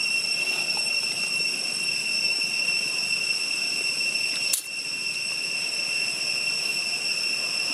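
Insects droning: a steady, high-pitched whine in several tones. A brief click about four and a half seconds in.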